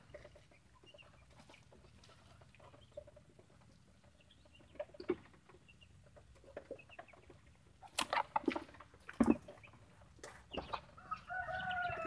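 Flock of Muscovy ducks feeding at plastic trays: scattered soft pecking clicks and low calls, with a few louder sharp knocks about eight to nine seconds in and a longer pitched call near the end.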